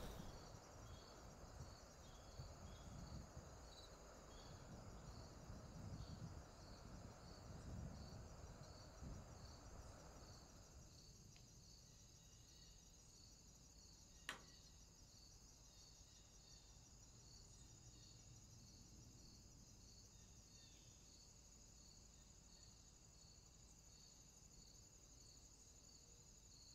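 Faint chirping of insects: a steady high trill with regular pulsed chirps over near-silent outdoor ambience. A faint low rumble and hiss fades out about eleven seconds in, and there is a single sharp click around the middle.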